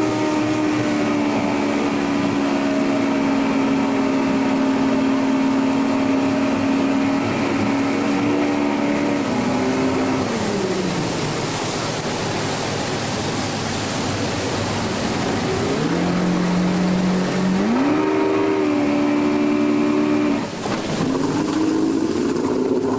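Ski boat's outboard motors running under way over a steady rush of wind and water. The engine pitch holds steady, falls as the throttle is eased about ten seconds in, rises again in two steps in the last third, and dips briefly before climbing once more near the end.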